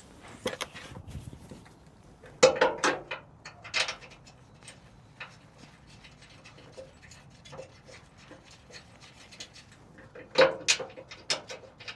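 Irregular metal clanks and knocks, some with a short ring, as the drive shaft and tools are handled while it is hung back in place; the loudest clusters come about two and a half seconds in and again near the end.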